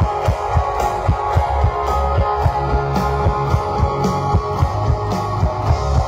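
Live rock band playing electric guitars over a steady drum beat.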